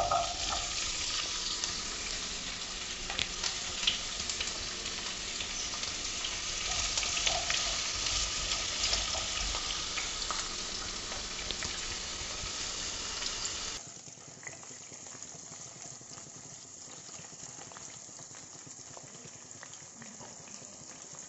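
Cauliflower florets sizzling in hot oil in a kadai, a dense hiss with many small crackles as they start to fry. About fourteen seconds in the sizzle drops suddenly to a much quieter hiss.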